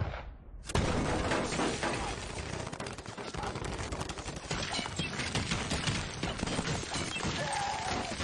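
Heavy gunfire: a loud shot just under a second in, then a dense, continuous volley of rapid shots with impacts and shattering.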